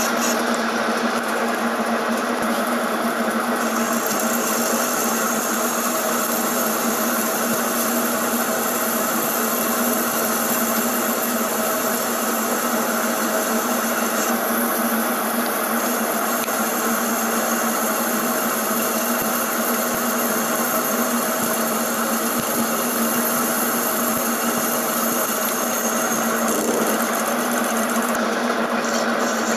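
Metal lathe running steadily while a cutting tool turns the grooves of a metal V-belt pulley: a continuous machine hum with a constant low tone, under the noise of the cut.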